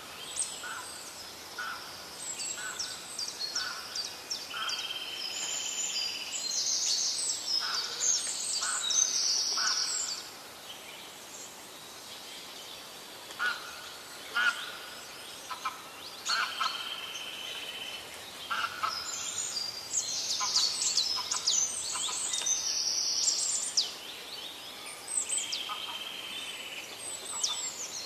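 Birds chirping and calling: quick high chirps, short downward-sweeping calls and a few held notes. They come in two busy spells with a quieter stretch in the middle, where a few sharp clicks stand out.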